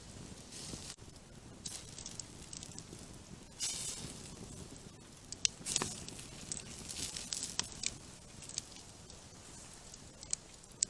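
Campfire crackling, with scattered sharp pops over a low, steady hiss and a brief rush of noise a few seconds in.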